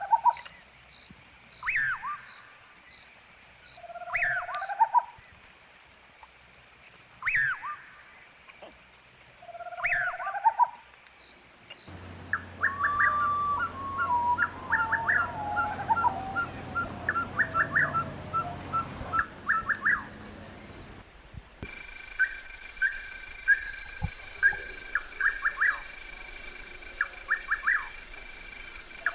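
Wild birds calling at a riverbank. For the first ten seconds or so one call repeats every two to three seconds, a quick falling note followed by a short rising low note. Then the background changes suddenly twice, and different rapid chirps follow, over a steady high-pitched ringing near the end.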